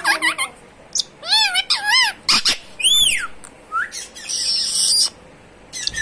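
Caged green parakeet calling: a run of short chirps and squawks that rise and fall in pitch, with a harsher, hissy screech about two-thirds of the way through.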